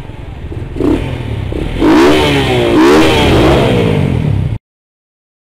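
An engine-revving sound effect: the engine revs repeatedly, its pitch swinging up and down, growing louder about two seconds in, then cutting off suddenly near the end.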